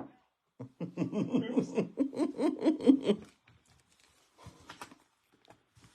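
A person laughing in a run of short pulses for about two and a half seconds, followed by a few faint clicks.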